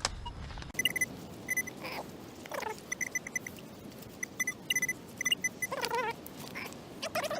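Metal detecting pinpointer beeping in short bursts and rapid strings at one fixed pitch, homing in on a buried metal target in a freshly dug hole. A few lower sliding sounds come between the beeps.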